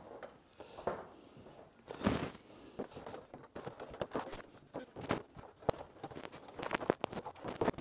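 Scattered light knocks, clicks and rustles of hands and small tools working on a stitched plywood kayak hull, with a brief louder noise about two seconds in.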